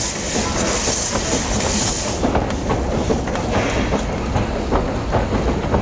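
Steam hissing out beside a moving steam train's carriage, cutting off about two seconds in, over the steady rumble of the running train and the knocking of its wheels on the rails.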